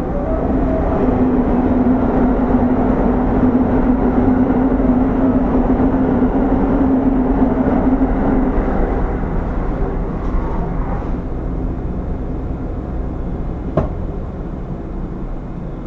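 Running sound of a JR West 205 series electric train, heard aboard motor car MoHa 205-103 with MT64 traction motors: wheels on rail with a steady motor hum. Near the middle the hum fades and the noise drops as the train slows. There is a single sharp click near the end.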